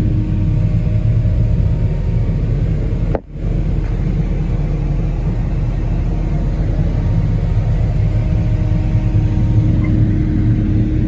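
Engine of a large farm machine running steadily at a constant speed, with a brief dropout about three seconds in.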